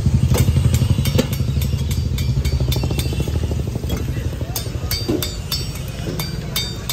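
An engine idling close by with a steady low throb that eases off about halfway through, under repeated short clinks of a metal spoon against steel pots and containers.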